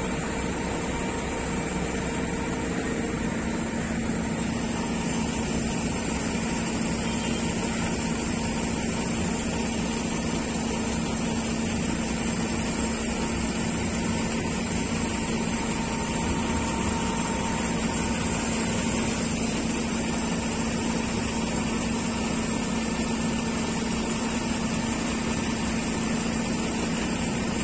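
Steady drone of heavy diesel machinery running, with a constant hum whose pitch shifts lower about three seconds in.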